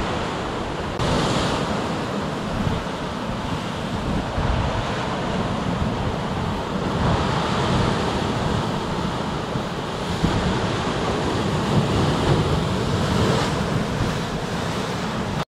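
Ocean surf breaking against and washing over a rock shelf at the foot of a sea cliff, a steady rush that swells louder as each wave comes in, with wind buffeting the microphone.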